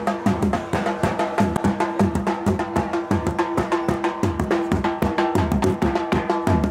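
Live folk drumming in a fast, driving rhythm of several strokes a second, with a steady held note sounding underneath.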